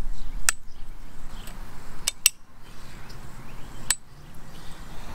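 Plastic Lock Jawz insulators clicking as they are snapped onto a steel T-post: four sharp clicks, two of them in quick succession near the middle.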